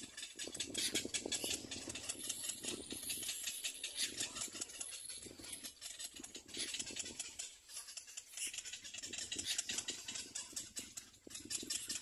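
Rapid rattling, clicking bird calls of nesting cormorants, coming in repeated bouts a second or two long.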